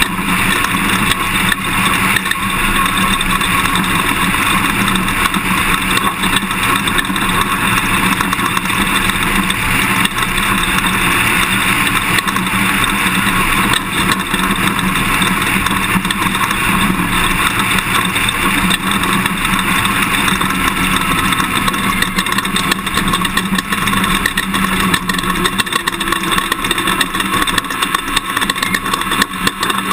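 Toyota Tundra pickup truck driving off-road at a steady pace, its engine running under a constant rush of tyre and chassis noise.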